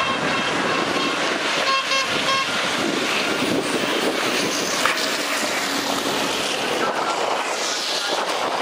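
Racing buses running past on a tarmac track, a steady mix of engine noise and rolling tyres, with a few quick horn toots about two seconds in and a single sharp knock near the middle.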